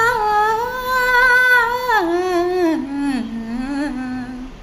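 A woman singing solo, drawing out a long wordless phrase in held, wavering notes. The melody steps down to a lower sustained note about three seconds in.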